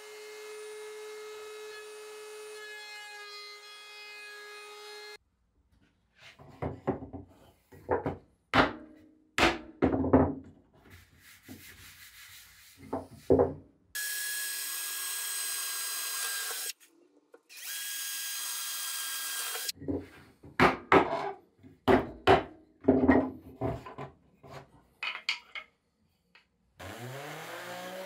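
A wood router running steadily as it routes the edge of a wooden longboard deck, stopping abruptly about five seconds in. Then a string of sharp knocks and clatters, two stretches of a cordless drill whining at high speed around the middle, more knocks, and near the end a random orbital sander motor spinning up with rising pitch.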